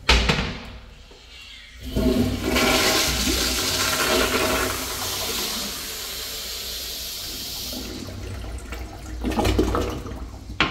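Toilet flushed by a Sloan sensor flushometer valve. A sharp sound comes at the start, then about two seconds in a loud rush of water swirls down the bowl, easing to a steadier rush that trails off near the end.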